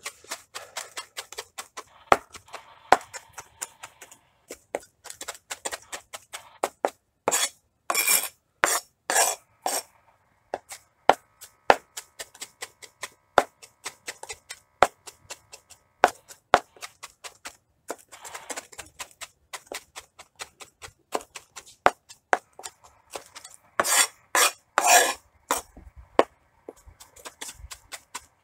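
A knife chopping parsley on a plastic cutting board: a steady run of quick sharp taps, with louder, denser flurries of strokes about a third of the way in and again near the end.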